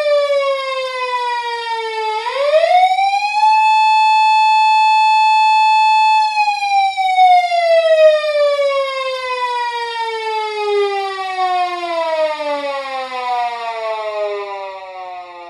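Japanese police patrol car siren wailing. Its pitch dips, sweeps up over about a second and a half to a steady high note held for about three seconds, then slides slowly down for the rest, growing fainter near the end.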